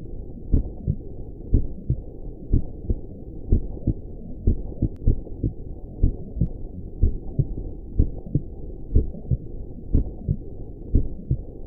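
Heartbeat sound: a steady lub-dub, each beat a pair of low, muffled thumps, about once a second over a constant low rushing hiss.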